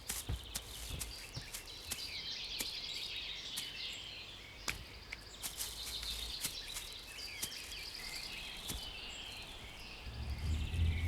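Bird calls: high, chirpy twittering repeated again and again, with scattered sharp clicks.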